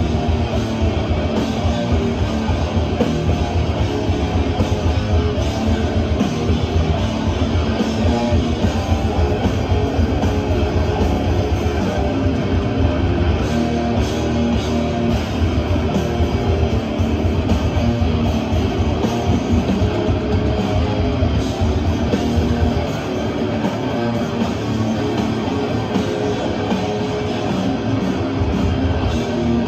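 Death metal band playing live: heavily distorted electric guitars with bass and drums, loud and unbroken.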